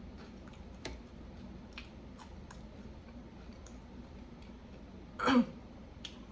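Close-miked mouth sounds of someone eating a sandwich: faint scattered wet clicks of chewing, with one short, louder throat sound about five seconds in.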